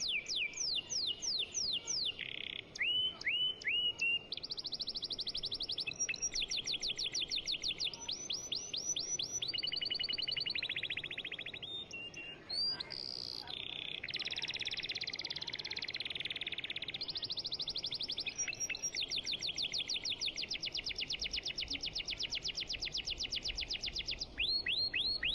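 A songbird singing in long runs of fast, rapid-fire chirps and trills, with brief pauses between phrases.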